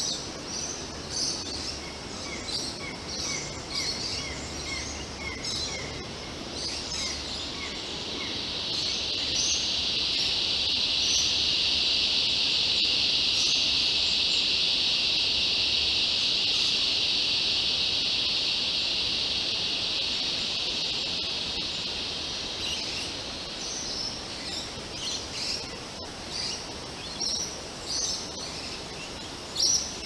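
Small birds call with short, high chirps, and early on one gives a run of evenly spaced notes. About a third of the way in, a steady high insect drone swells up, holds for over ten seconds, then fades, leaving the chirps.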